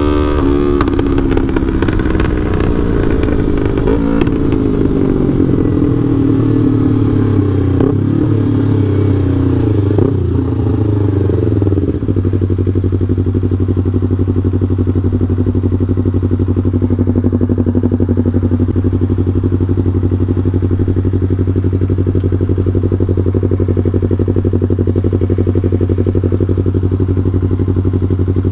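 Yamaha R3's parallel-twin engine through a FullPro aftermarket exhaust, with a remap: the revs fall and waver over the first twelve seconds or so, then it settles into a steady idle.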